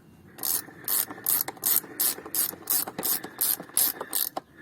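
Ratchet wrench with a 17 mm socket running the front wheel axle up hand tight: about a dozen quick back-and-forth strokes, each a short burst of pawl clicks, roughly three strokes a second, stopping shortly before the end.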